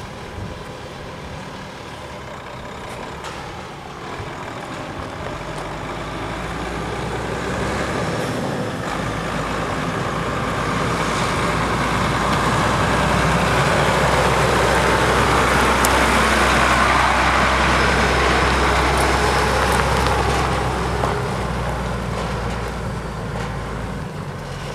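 Ford L8000 medium-duty truck driving past on gravel: the engine's low hum and the tyre noise build as it approaches, are loudest about midway, then fade as it pulls away.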